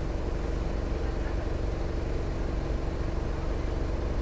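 Mercedes-Benz OF 1418 bus diesel engine running at a steady speed, a constant drone with no change in pitch.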